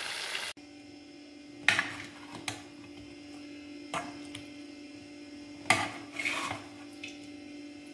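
A brief sizzle of chicken frying in sauce that cuts off abruptly about half a second in. Then a metal serving spoon scrapes and knocks against a steel bowl and a plate as the sauced chilli chicken is served, in a few separate clinks and scrapes, the loudest near 2 and 6 seconds in, over a steady low hum.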